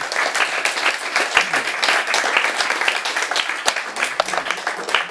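Audience applauding, many people clapping at once.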